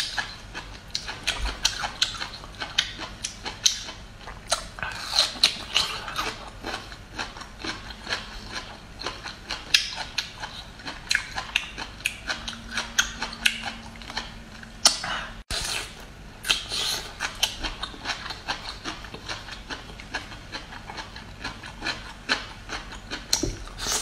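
Crisp crackling and snapping as the layers of a cooked bamboo shoot are peeled off by hand and the tender pieces are chewed, close up: many short sharp crackles, several a second.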